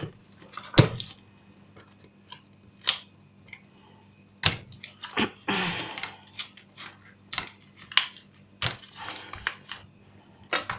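Irregular sharp clicks and taps of a tin of canned tuna being opened and handled, with a short scraping sound just past halfway.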